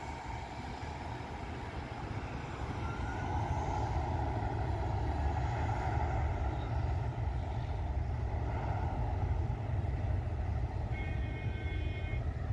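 Jet airliner's engines at takeoff power, a steady low rumble mixed with passing road traffic, growing louder over the first few seconds. A horn sounds briefly near the end.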